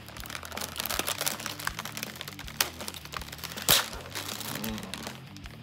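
Plastic cookie packaging crinkling and crackling as it is opened by hand, with two sharp snaps, the louder one about three and a half seconds in. Soft background music runs underneath.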